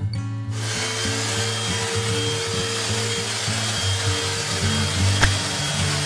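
Bagless upright vacuum cleaner running over carpet, a steady rushing hiss with a constant whine, starting abruptly about half a second in. Background music plays underneath.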